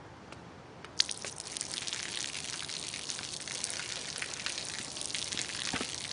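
Thin stream of water falling from a pipe outlet and splashing on pavement, with dripping. Fainter at first, then a sharp tick about a second in and steady splashing after it.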